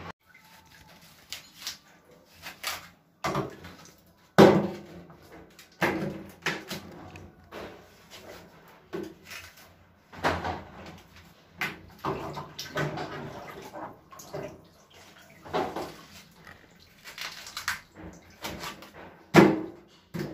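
Irregular knocks, clatters and scrapes of a lobster and tools against a stainless steel sink, with some splashing water, as the lobster is cleaned. The sharpest knocks come about four seconds in and near the end.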